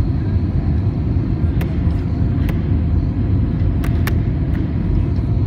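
Steady cabin noise inside an Airbus A320 on final approach: a deep rumble of engines and airflow. Several sharp clicks or rattles come over it between about one and a half and four and a half seconds in.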